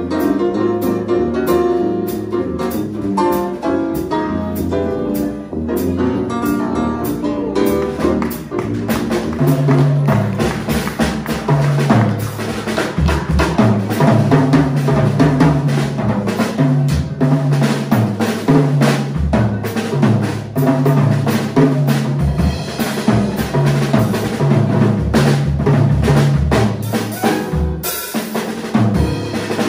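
Small swing jazz band playing live. The first few seconds hold dense piano and guitar chords over the drums; from about nine seconds in the drum kit comes to the fore, with bass drum and snare rimshots over a steady, pulsing bass line.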